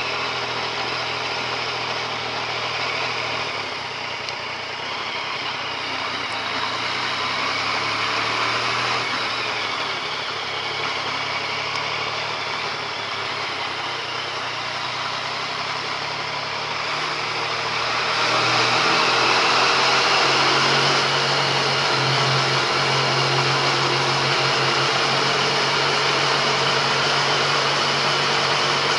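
Yamaha MT-09 Tracer's inline three-cylinder engine running while riding, heard onboard under steady rushing noise. The sound grows louder about two-thirds of the way through.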